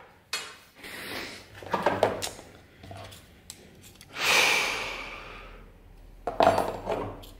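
Small steel parts and a steel vernier caliper clinking and clattering on a tabletop as they are picked up and handled, with a longer scraping sound a little past four seconds in and the loudest clatter about six and a half seconds in.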